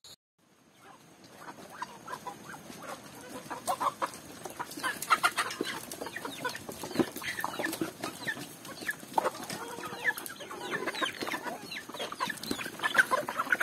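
A flock of chickens clucking and chirping as they feed, with scattered short clicks. The sound fades in over the first two seconds and then stays busy.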